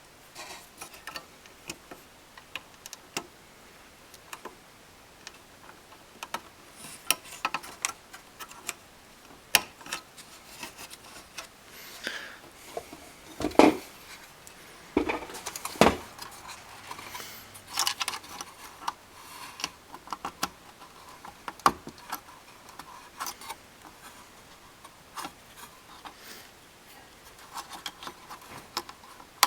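Small plastic clicks, taps and rattles as a GM factory car radio is handled and the faceplate's wire connectors are plugged back into the radio chassis. Two louder knocks come a little under halfway through and just past halfway.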